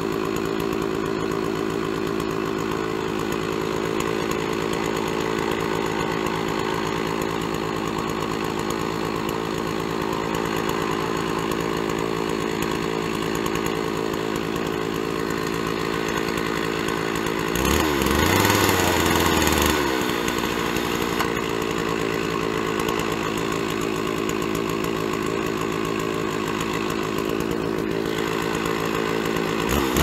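Stihl 660 two-stroke chainsaw on a Norwood PortaMill chainsaw mill running steadily under load as it rips a log lengthwise into boards. A little past halfway it rises in pitch and gets louder for about two seconds, then settles back to its working note.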